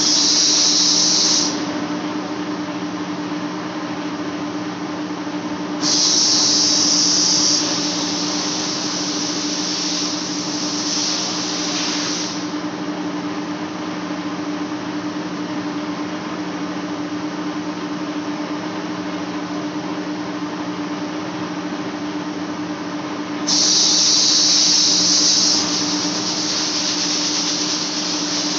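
Large lathe facing a big steel flange: a steady machine hum with two low tones runs throughout. A loud high-pitched hiss comes in three times, at the start, about six seconds in and about twenty-three seconds in, each lasting a second or two and trailing off into a fainter hiss.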